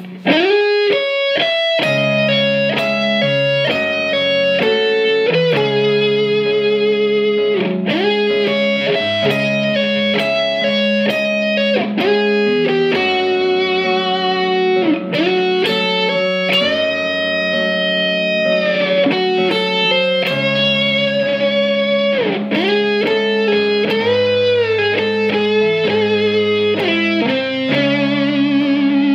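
Gibson Les Paul electric guitar playing a lead line, with string bends and wavering vibrato on held notes, over long steady low notes.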